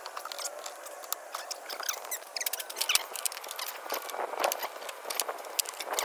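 Many small clicks, taps and light scrapes of hands and tools working on the car's electric power antenna assembly, a little busier in the second half.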